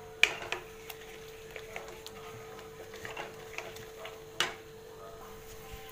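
A spatula stirring thick masala and cream in a pan, with scattered clicks and scrapes against the pan. The sharpest knocks come just after the start and again past four seconds. The masala is being cooked until the cream releases its ghee.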